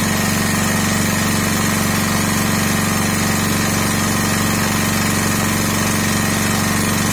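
Sakura Storm D9000E portable generator's engine running steadily under load from a load bank, an even drone that does not change.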